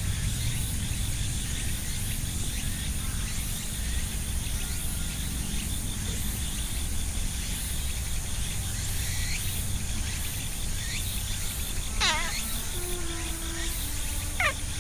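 Insects chirring steadily with a fast pulsing trill, and twice near the end a bird gives a sharp call that falls steeply in pitch.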